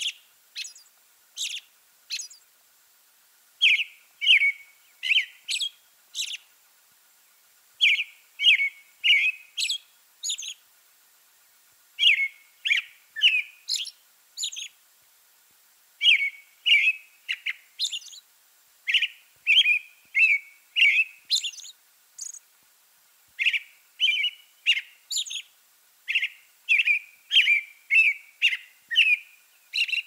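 American robin singing: repeated groups of three to five clear, whistled caroling notes ("cheerio, cheerily, cheery-up") with short pauses between the groups, mixed with thin, very high "hisselly" notes.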